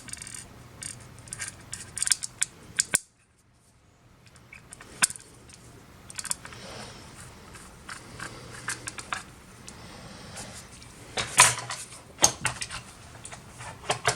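Small sharp clicks and light metal rattles of parts being handled inside an open desktop computer's case. The sound drops out suddenly about three seconds in, and there is a louder cluster of clicks near the end.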